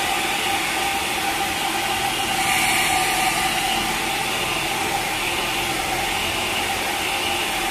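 Hair dryer blowing steadily, a constant rush of air with a steady hum, drying a freshly bathed kitten.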